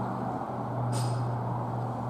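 Steady low background hum with a brief soft hiss about a second in.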